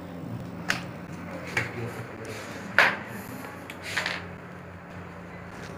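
A handful of sharp knocks and clicks of objects being handled, the loudest near the middle, over a steady low hum.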